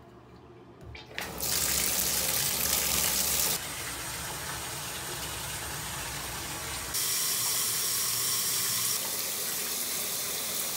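Bathtub faucet turned on about a second in, water running steadily from the spout into the tub. The rush drops slightly and changes a couple of times but keeps going.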